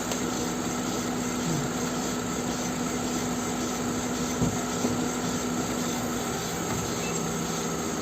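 Car engine running with a jacked-up front wheel spinning in gear: a steady hum holding one constant tone.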